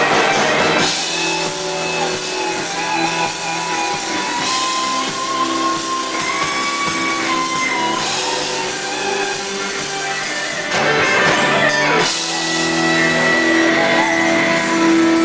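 Live rock band playing: electric guitars with long held notes over bass guitar and drums. The band gets louder about eleven seconds in.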